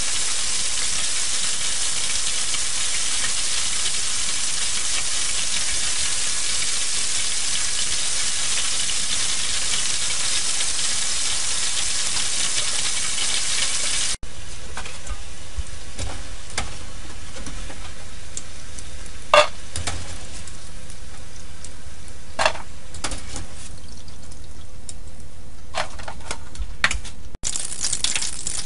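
Battered chicken pieces deep-frying in a pot of hot oil, a dense steady sizzle for about the first half. After a cut the frying is quieter and thinner as the golden pieces near done, with a few sharp clicks. A loud sizzle returns near the end.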